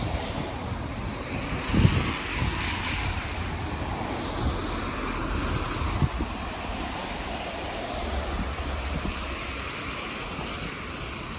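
Traffic passing on a rain-wet street: tyre hiss swelling and fading as vehicles go by, twice. Low wind thumps on the microphone, the loudest about two seconds in.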